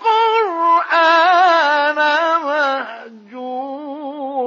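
A male reciter chanting the Quran in the ornate mujawwad style: long melismatic phrases that glide and waver in pitch. The voice dips briefly about three seconds in, then carries on with a lower held phrase.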